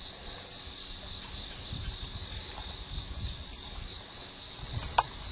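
Steady high-pitched chorus of insects, an even summer drone that does not let up, with one short sharp click or knock about five seconds in.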